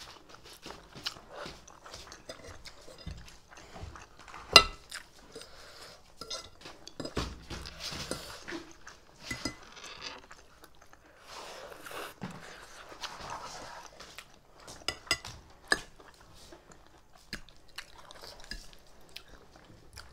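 Close-up eating sounds: slurping and chewing instant noodles, with forks and spoons clinking against plates. One sharp clink about four and a half seconds in is the loudest.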